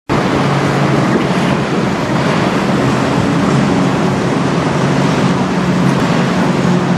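Steady rush of wind and choppy river water, with a low steady engine hum underneath.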